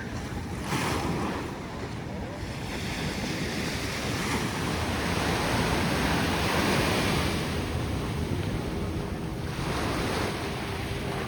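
Ocean surf breaking and washing in, with wind rumbling on the microphone. The wash swells to its loudest about halfway through.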